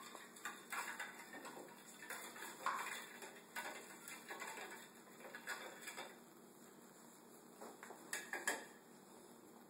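A whisk stirring vinaigrette in a glass bowl, ticking and scraping against the glass in quick irregular strokes; the stirring stops about six seconds in, and a couple of sharper knocks follow near the end.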